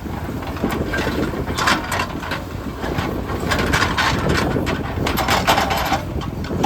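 Heavy diesel construction machinery running: a steady engine rumble with irregular clattering and scraping over it.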